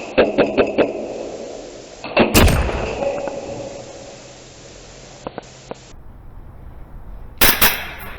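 Gunfire: a quick run of sharp shots at the start, then a single loud bang with a long rumbling fade about two seconds in, and another burst of loud shots near the end.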